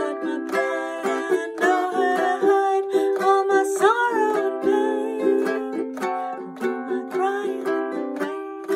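A woman singing while strumming a ukulele in a steady rhythm, a ballad in G major.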